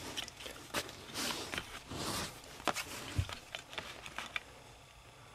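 Small clicks and short scrapes of hands working on a GPS unit's circuit board, undoing its small cable connectors.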